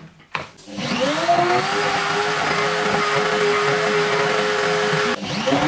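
A knock, then the spindle motor of a homemade plywood CNC router spinning up about a second in and running at speed with a steady high whine while the cutter mills an aluminium plate. Near the end it dips briefly and spins up again.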